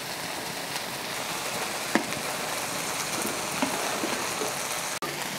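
Green salsa sizzling and boiling as it is poured into a hot frying pan of chicharrón prensado in a little oil: a steady, even hiss with a couple of light clicks.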